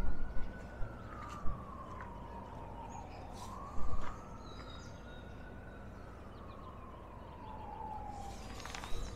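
A siren wailing, sweeping slowly up and down in pitch about every four to five seconds. Short knocks come over it, the loudest about four seconds in as a car's tyres cross the rails of the grade crossing.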